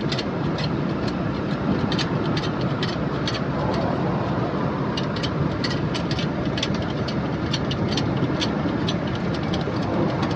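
A heavy diesel engine idling steadily, with many sharp clicks and taps at irregular intervals over it.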